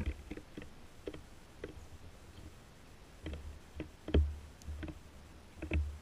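Irregular light taps and dull knocks on a concrete bird table close to the camera, typical of small birds landing and pecking at bread. The loudest knocks come about four seconds in and again near the end.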